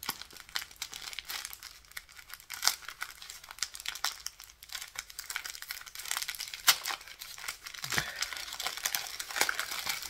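Gift wrapping crinkling and tearing in irregular crackles as a small parcel is unwrapped by hand, with a dull knock about eight seconds in.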